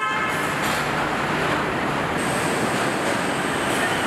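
Steady machinery noise from a car assembly line, with a thin high whine coming in about two seconds in.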